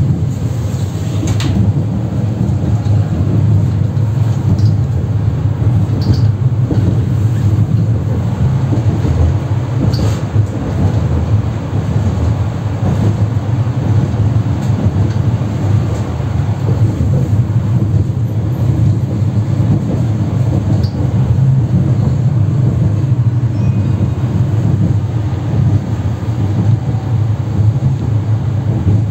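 Tram heard from inside the passenger cabin while running along the street: a steady low rumble of wheels on the rails and the running gear, with a few sharp clicks and knocks here and there.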